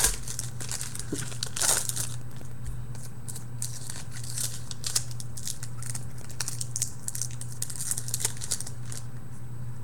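Foil wrappers of Topps Platinum football card packs crinkling and tearing as several packs are ripped open together, in irregular crackly bursts.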